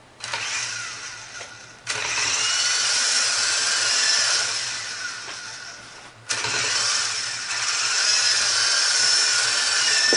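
Syma S032G radio-controlled toy helicopter's motors and rotor blades whining as the throttle is worked. It has a short burst that fades, a sudden spin-up about two seconds in that eases off toward six seconds, then another sudden rise that holds steady.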